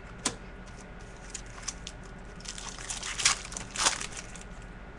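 Trading cards and their packaging being handled, rustling and sliding. There is a sharp click just after the start and a flurry of louder rustles about three to four seconds in.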